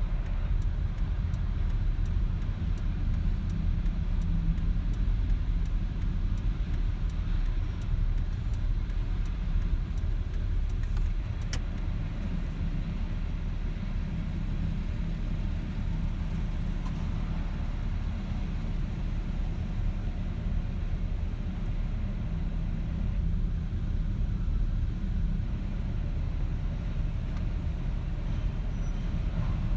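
Union Pacific manifest freight train rolling past: a steady low rumble of railcars on the track, with a run of sharp clicks through the first twelve seconds or so.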